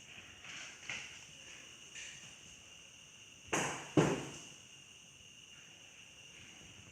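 Two sharp knocks about half a second apart, each dying away over a fraction of a second, over a faint steady high hiss.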